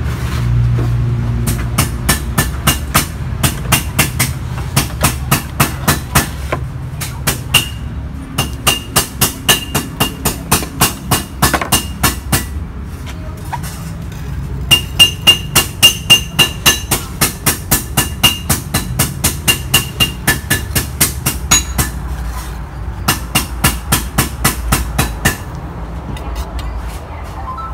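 Concrete pot stand being shaped by hand: cement powder shaken through a sieve onto the wet mortar, then a metal profile template scraped around the central pipe. A rapid, even clicking of about three clicks a second runs through it, pausing briefly about halfway.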